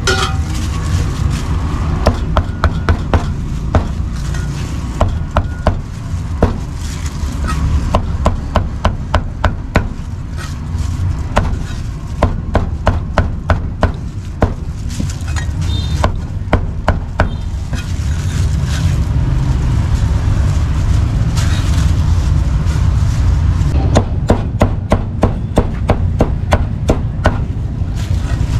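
Meat cleaver chopping braised pork offal and roast pork belly on a round wooden chopping block, in quick runs of sharp strikes about three a second, with a pause of several seconds about two-thirds through. A steady low hum runs underneath.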